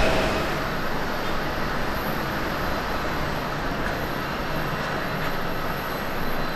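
Distant Airbus A330-300 jet engines, Rolls-Royce Trent 700s, running steadily at low power as the airliner taxis on the runway before its takeoff run: an even hiss and rumble with a faint, steady high whine.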